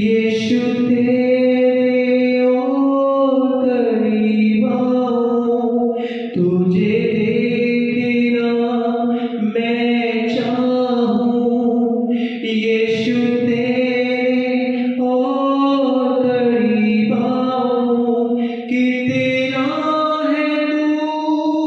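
A man sings a Hindi Christian worship song solo into a microphone, in long held phrases of about six seconds each.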